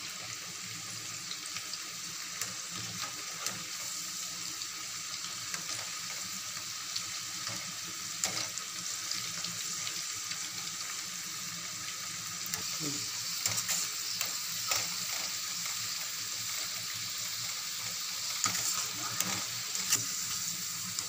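Gram-flour-battered cauliflower pakoda deep-frying in hot oil in a kadai: a steady sizzle. Scattered sharp clicks, more in the second half, come from a wire spider skimmer knocking against the pan as the pieces are turned.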